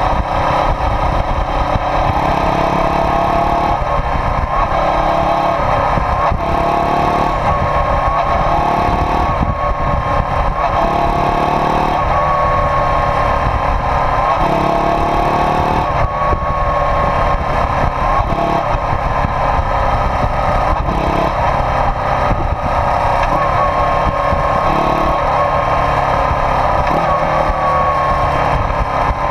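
1991 Suzuki GS400E's air-cooled 400 cc parallel-twin engine, fitted with a one-off silencer, running loud and steady while the bike rides. Its pitch rises and drops back several times as the throttle is opened and closed.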